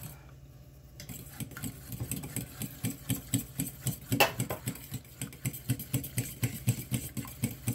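Fork beating eggs in a stainless steel bowl: rapid, even clinking strokes of about five a second against the metal, starting about a second in, with one louder knock about four seconds in.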